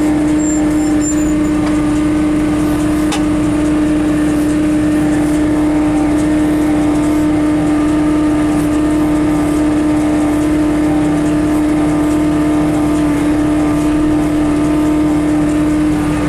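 John Deere 6300 tractor's diesel engine running steadily under load, a constant droning tone with no change in speed.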